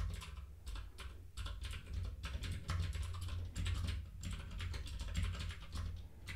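Typing on a computer keyboard: a steady run of irregular keystroke clicks.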